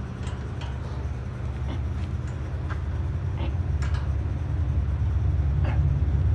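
A steady low mechanical hum, growing slightly louder, with scattered light clicks and ticks from the scrap wire stripper's cutter and tensioner parts being checked by hand.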